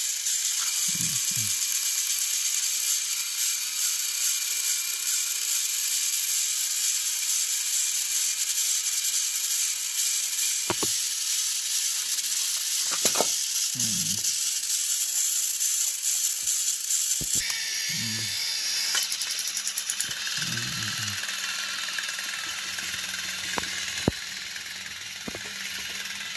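Small electric motors and plastic gears of battery-powered toy train engines whirring and rattling steadily on plastic track, with a few sharp clicks. The whir drops a little quieter about two-thirds of the way through.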